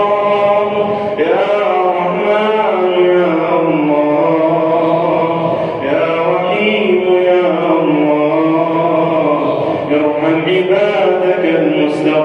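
A man's voice chanting an Arabic supplication in long, drawn-out melodic phrases, holding notes that glide up and down, with a few brief breaks for breath.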